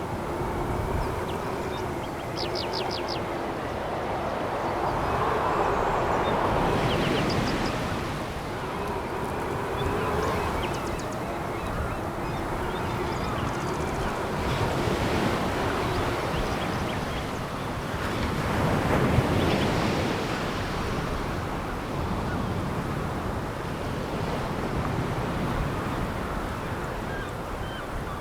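Sea waves breaking and washing on a pebble beach, a continuous surf that swells twice, about a quarter of the way in and again about two-thirds of the way in.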